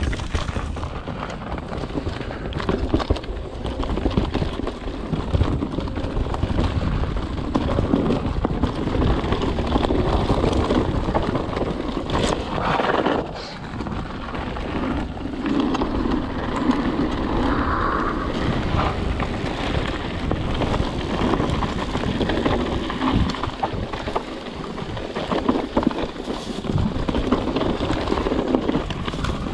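Mountain bike rolling down a dirt trail. Tyres run on dirt and gravel with many small rattles and knocks from the bike, and wind rushes over the microphone.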